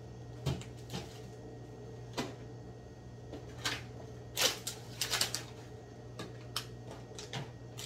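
Rustling plastic wrap and light knocks of boxed and packaged snacks being handled and set down on a table, in scattered bursts that are busiest about four to five and a half seconds in.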